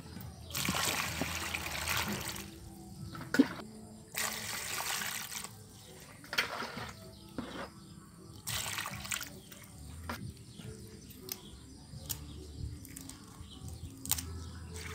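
Water poured into a stainless-steel basin of vegetables in three pours, the longest first. Afterwards hands move the lettuce and cucumbers about in the water with small splashes.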